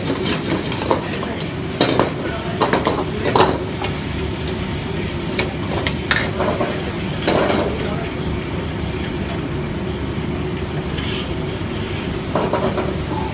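Steel ladle scraping and clanking against a wok as vegetable noodles are stir-fried and tossed, with the food sizzling over the steady rush of a high-flame gas wok burner. Sharp clanks come in clusters, loudest about three and a half seconds in.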